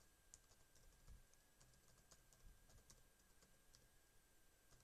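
Very faint typing on a computer keyboard: scattered, irregular keystroke clicks.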